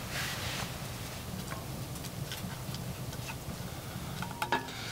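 Curry simmering in a camp pot over the fire: quiet sparse ticks and pops over a low steady background. Near the end a spoon stirs the pot, with a few small clicks.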